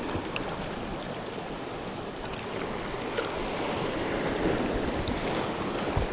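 Sea waves washing against shore rocks: a steady rushing of surf, with a short knock near the end.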